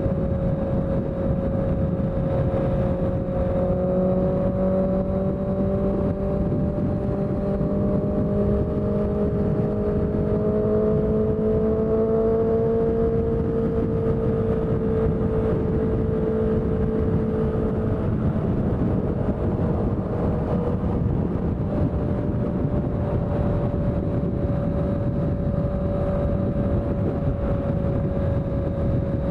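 Honda CBR650F's inline-four engine with a CS Racing aftermarket exhaust, running at steady cruising revs over a constant low rumble. The pitch rises gently for several seconds, then eases back down and holds steady.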